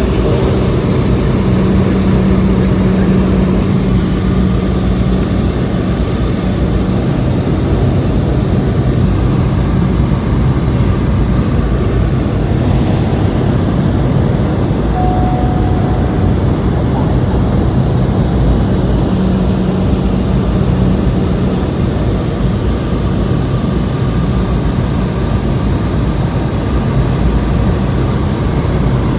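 Cabin noise of a Cessna 208 Caravan single-engine turboprop in flight: a loud, steady engine and propeller drone with a thin high whine over it.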